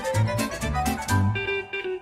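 Instrumental background music with guitar and fiddle over a steady, repeating bass beat, dipping briefly near the end.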